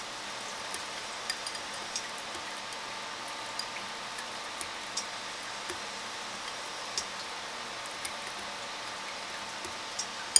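Wire whisk beating thin pancake batter in a white ceramic bowl: light, irregular clicks of the wire against the bowl, about one a second, over a steady hiss, with a sharper click near the end.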